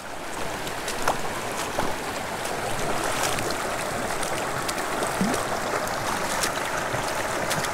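Shallow mountain creek running steadily over a rocky, gravel bed, with a few light knocks and splashes from wading boots stepping through the water.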